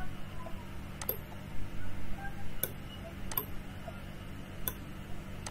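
Computer mouse button clicking: four sharp single clicks at uneven intervals while wires are placed and bent in a circuit editor. A low steady hum runs underneath.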